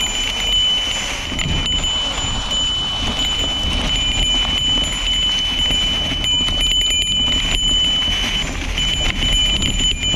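A small bell carried on the ride ringing continuously as it is shaken, dropping out briefly near the end, over the rattle and tyre noise of a mountain bike riding rough singletrack.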